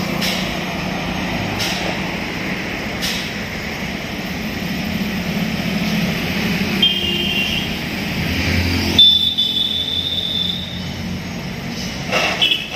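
Vehicle engines running steadily amid passing road traffic, with three sharp clicks in the first three seconds. A vehicle horn sounds briefly about seven seconds in, again for nearly two seconds around nine seconds, and once more briefly near the end.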